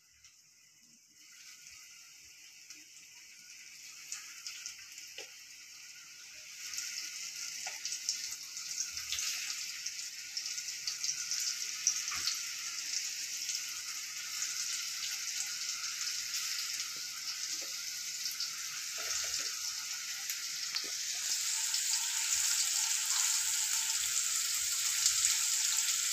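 Flour-coated chicken pieces frying in hot oil in a steel kadhai, a steady sizzle that grows louder as more pieces are dropped in one by one, stepping up about a quarter of the way in and again near the end.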